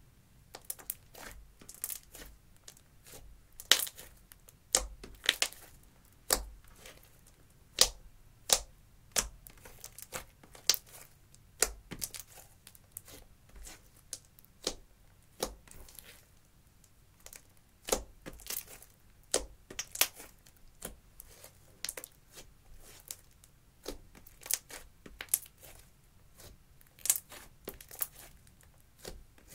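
Clear slime with blue eyeshadow mixed into it being pulled, folded and squeezed by hand, giving off irregular sharp sticky pops and clicks, one to three a second.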